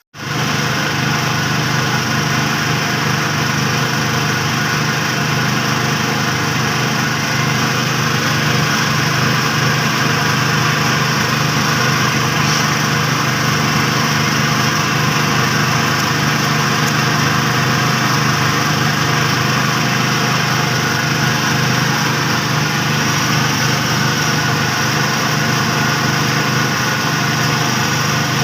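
Engine-driven rice threshing machine running steadily, a constant small-engine drone mixed with the thresher's whirring, cutting in suddenly at the start.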